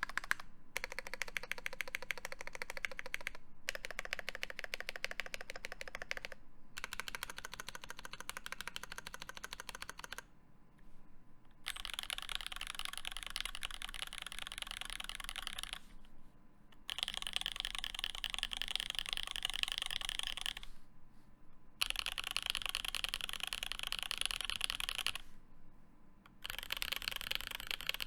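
Fast typing on a lubed SQUARE.X mechanical keyboard with Alpaca linear switches, an aluminium plate and GMK keycaps, in runs of a few seconds separated by short breaks. From about twelve seconds in the key sound turns brighter and higher-pitched.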